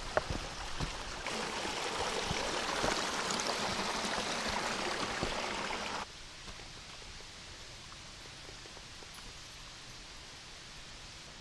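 Small mountain stream rushing over rocks, a steady even rush. About six seconds in it cuts off abruptly to a much fainter steady background hiss.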